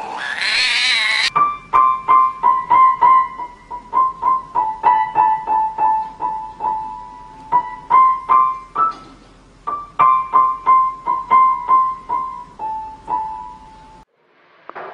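A cat's brief, loud rising yowl, then piano notes struck one at a time by a cat pressing the keys, two or three a second in the upper-middle register, with a couple of short pauses. The notes stop about a second before the end.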